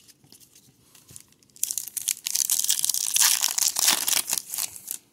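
A foil-lined baseball card pack wrapper being torn open and crinkled: a dense crackling that starts about one and a half seconds in and lasts about three seconds, after faint shuffling of cards.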